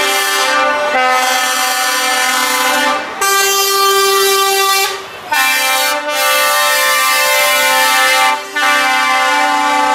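Truck air horns blowing in long, loud blasts, several seconds each, with short breaks between them. The pitch changes from one blast to the next.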